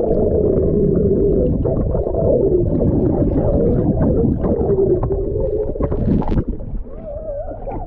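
Muffled underwater sound from a camera held under the pool surface: a dense, low rush of moving water and air bubbles as a swimmer breathes out and glides past. It gets quieter about six and a half seconds in.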